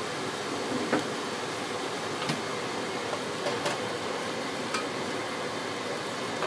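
Light clicks and knocks of kitchen utensils, about five spread over several seconds, the loudest about a second in, over a steady background hiss.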